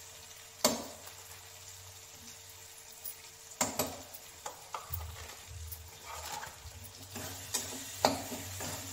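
A spatula stirring frying masala in a steel kadhai: scattered clinks and scrapes of the spatula against the pan, one under a second in and several from about four seconds on.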